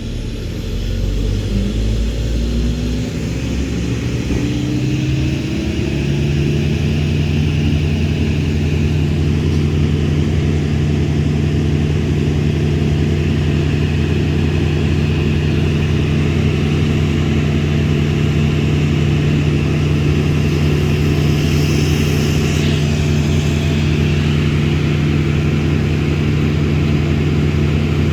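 An engine speeding up over the first few seconds, then running steadily at a high, even speed.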